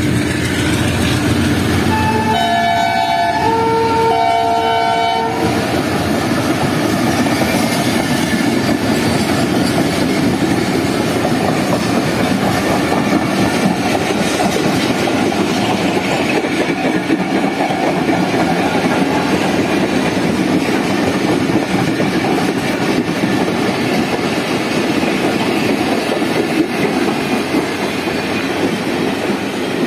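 Pakistan Railways AGE30 diesel-electric locomotive sounding its multi-tone horn in two blasts about two seconds in. The train then runs past close by, a steady loud rumble of coaches and wheels on the rails.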